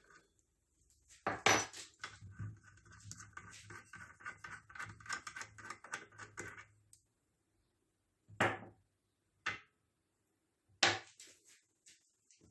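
Small metal parts clinking and ticking as the M6 Allen arbor bolt and outer flange come off a Bosch GKS 150 circular saw's spindle. There is one sharp clink about a second and a half in, then several seconds of light, rapid ticking as the parts are worked off by hand, and three separate knocks near the end.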